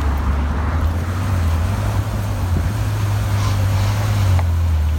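Ferrari 812 Superfast's 6.5-litre naturally aspirated V12 idling with a steady low rumble.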